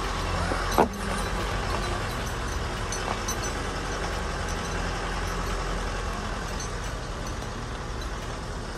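Car driving slowly on a dirt road: a steady low engine and tyre rumble with a noisy hiss. There is one short, sharp, loud sound just under a second in.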